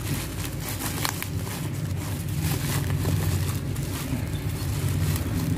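Bubble wrap and plastic packaging crinkling in short crackles as hands handle a wrapped parcel, over a steady low rumble.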